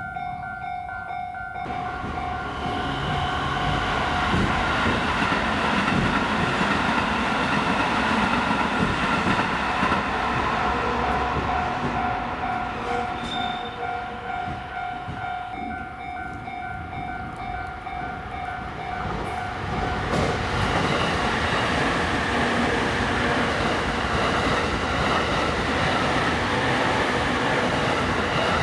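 Japanese level-crossing warning bell ringing a steady repeating electronic ding while electric trains run past with loud rumbling and wheel clatter. The bell stops about twenty seconds in as train noise carries on.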